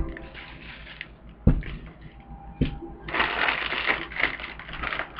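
Two sharp knocks, then from about three seconds in a crackly crinkling of a plastic food bag being handled.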